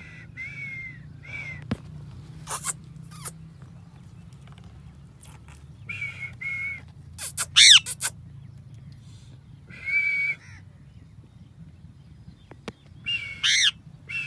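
Parrot calling and screeching: short calls repeated at one pitch, mixed with harsh screeches. Twice, about halfway through and near the end, comes a loud call that sweeps up and back down.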